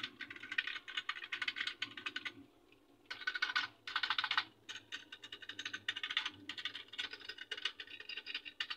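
Typing on a membrane keyboard: a fast run of key presses, with a short pause about two and a half seconds in.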